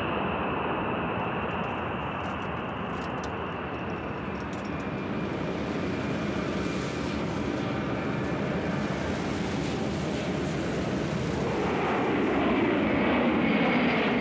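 Jet aircraft engines running with a steady noise and a faint high whine, growing louder near the end.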